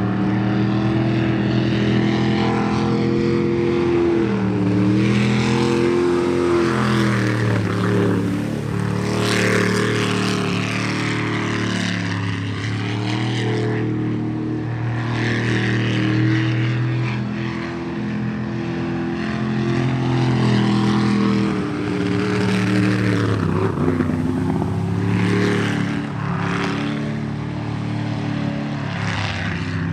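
Sprint boat's jet-boat engine running hard through the course, its pitch repeatedly dropping and climbing again as it slows for turns and accelerates out of them, with short bursts of hiss.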